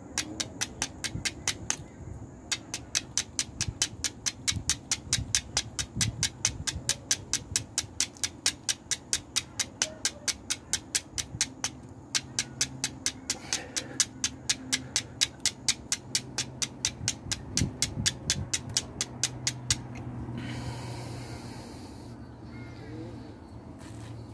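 Flint struck repeatedly against a BeaverBushcraft oval carbon-steel striker, a rapid series of sharp scraping clicks at about four a second, with two short pauses, throwing sparks onto char cloth that has not yet caught. The striking stops near the end, and a brief soft rush of noise follows.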